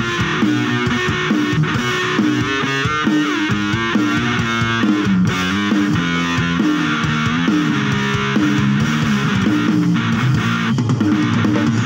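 Amplified electric guitar playing a rock riff of quickly changing notes.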